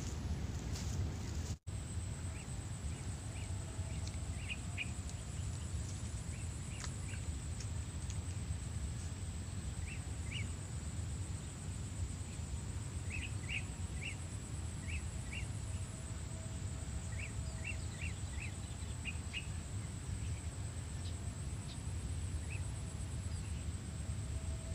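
Open-air wetland ambience: a steady low wind rumble and a steady high-pitched insect drone, with small groups of short bird chirps coming every few seconds.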